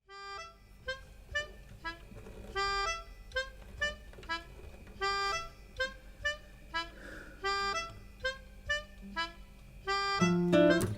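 Background music: a bright melody of short, separate pitched notes, with a fuller, louder accompaniment coming in near the end.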